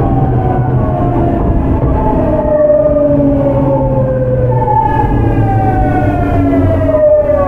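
Onboard running sound of a Tokyu 9000 series train: the early Hitachi GTO-VVVF inverter whines in tones that slide steadily down in pitch, jump back up about five seconds in and slide down again, over the hum of the traction motors and the rumble of the wheels. The falling whine is typical of the train slowing under electric braking.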